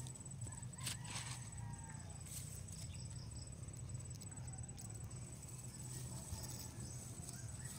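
A knife cutting lengthwise into a watermelon, giving a few faint crisp cracks as the blade breaks through the rind, about a second in and again a little past two seconds. Under it runs a low rumble and a thin, steady high-pitched buzz.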